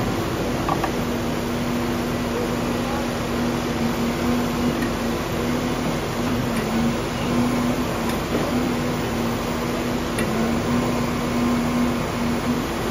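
Caterpillar 335F excavator's diesel engine running steadily under hydraulic work, a constant hum with a steady low tone.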